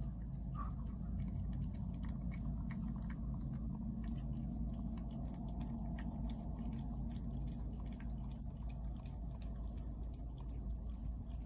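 A cat eating wet food from a plate close by: quick, wet chewing clicks and smacks throughout, over a steady low rumble.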